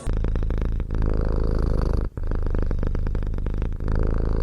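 Domestic cat purring loudly and close up: a fast, steady pulsing rumble in breath-long stretches, broken by short pauses between breaths.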